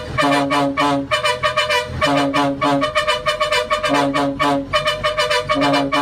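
Bus telolet horn playing its tune: short blasts of several pitched horn notes in a phrase that repeats about every two seconds, cutting off suddenly at the end.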